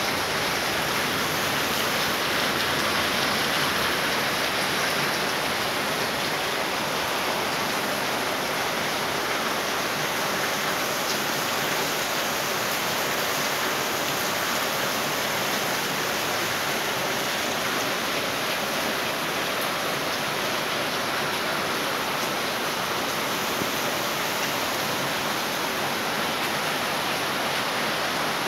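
Heavy rain falling in a steady downpour, an even hiss that does not let up.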